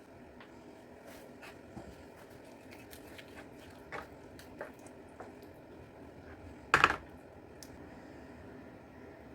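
Kitchen handling noises over a low steady hum: scattered small clicks and taps, with one loud short clatter about seven seconds in.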